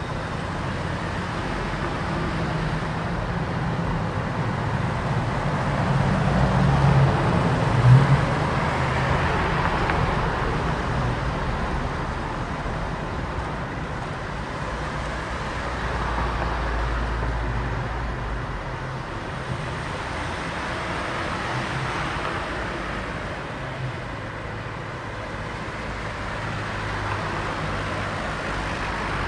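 City street traffic: a steady flow of cars and other vehicles passing, with engine hum and tyre noise. One vehicle passes loudest about a quarter of the way in, with a brief louder peak as it goes by.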